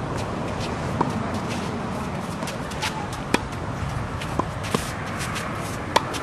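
Tennis ball struck by racquets and bouncing on a hard court during a rally: a handful of sharp pops, the loudest near the end as the forehand is hit. Sneakers scuff on the court between the hits over a steady background noise.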